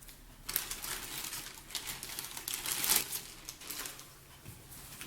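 Packaging crinkling and rustling as items are handled and unwrapped from a box, a run of quick crackles and clicks starting about half a second in and dying down near the end.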